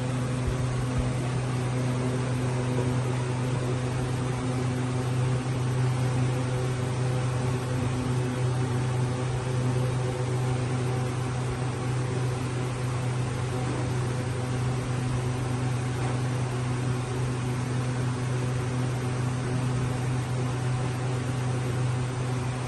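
A steady low machine hum under an even hiss.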